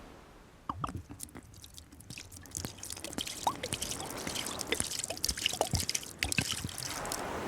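Sea-sand scrub being stirred in a bowl: a run of small, irregular clicks and gritty scrapes from the utensil and sand, starting about a second in.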